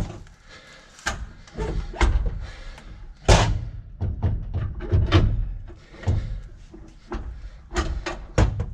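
Irregular metal clunks and knocks, about a dozen, the loudest about three seconds in, as a car's transmission is shoved and worked into position from underneath.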